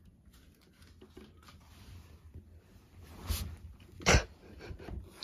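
A cat hissing and spitting at another cat: a hiss about three seconds in and a sharp spit just after four, the loudest sound. Faint rustling of bags and clothes comes before it.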